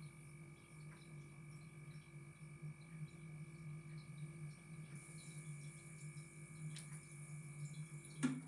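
A steady electrical hum with a few faint, higher steady tones. A thin high whine joins about halfway through, and a short knock comes near the end.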